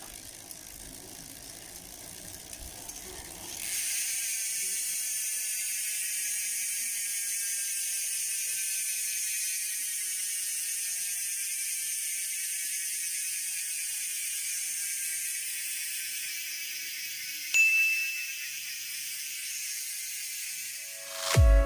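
GUB six-pawl rear bicycle hub freewheeling after a fast spin. The pawls make a continuous high buzz of rapid clicks that starts about four seconds in and slowly falls in pitch and loudness as the wheel coasts down.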